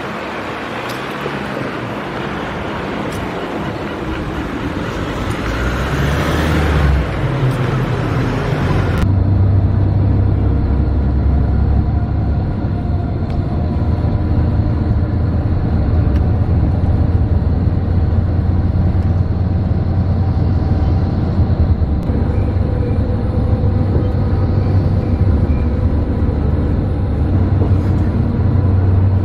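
Traffic noise on a city street, swelling around six to seven seconds in; about nine seconds in it cuts abruptly to the steady low rumble of a moving vehicle heard from inside, with the high hiss gone.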